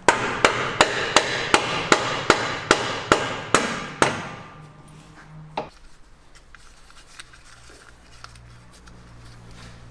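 Hammer striking metal on a truck differential's pinion assembly, about eleven even blows at roughly two and a half a second, each with a short metallic ring. The blows stop about four seconds in, and a single knock follows a moment later.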